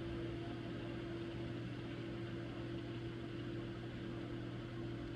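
Steady machine hum: two constant low tones over an even hiss, unchanging throughout.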